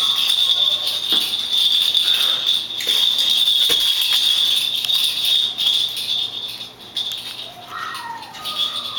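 Maltese puppies playing over a toy on a tiled floor: a steady high-pitched jingle runs through, with scattered sharp clicks. It fades about two-thirds in, and a few short falling puppy whimpers come near the end.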